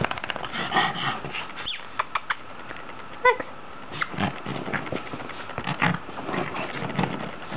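A Boston terrier playing rough with her dog bed: quick scratching and rustling of the bed fabric, with short grunting noises from the dog and one brief high-pitched vocal sound about three seconds in.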